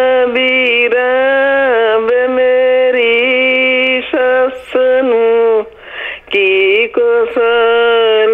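A caller singing a Punjabi song down the telephone line, unaccompanied, in long held and wavering notes; the sound is thin, with the top cut off by the phone line. A short breathy break comes a little after halfway.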